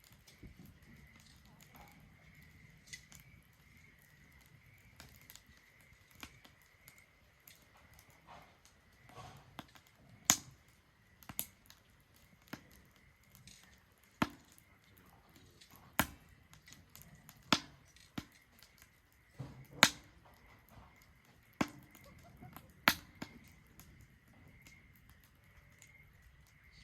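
Wood fire burning in a Solo Stove Ranger fire pit, crackling with irregular sharp pops and snaps, the loudest dozen or so coming in the middle of the stretch, over a faint steady high whine.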